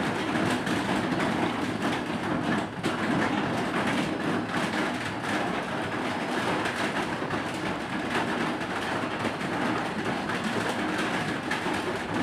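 Loud steady rushing noise, even and unbroken, with no clear separate events in it.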